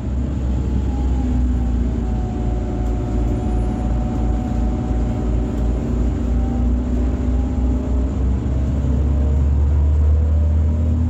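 Irisbus Citelis 18 articulated city bus under way, heard from on board: a steady low drone from its IVECO Cursor 8 diesel engine and driveline, with faint whining tones that shift slowly in pitch. It grows slightly louder near the end.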